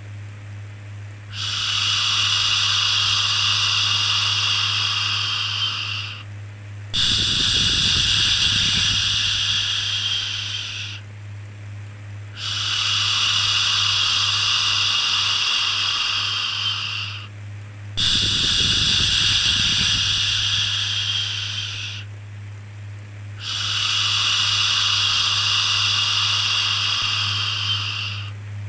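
Long, soothing "shhh" shushing sounds, five in a row, each lasting about four to five seconds with a short pause between, over a steady low hum.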